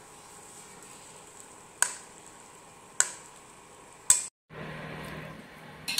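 Metal ladle scraping braised meat and sauce out of a wok into a clay pot, with three sharp knocks of ladle on wok about a second apart over a faint hiss. The sound cuts out briefly after the third knock, and a steady low hum follows.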